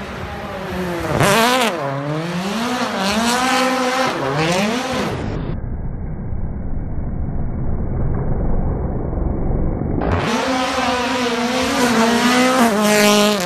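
Rally car engines revving hard through a hairpin: the engine note rises and falls several times over the first few seconds as the driver works the throttle and gears, turns muffled and rumbling for a few seconds in the middle, then comes back held at high revs as a car slides through the bend.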